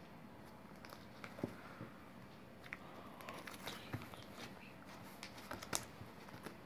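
Gold glitter slime being squeezed and kneaded by hand, giving faint sticky clicks and crackles, with a few sharper pops about a second and a half in, around four seconds and near six seconds.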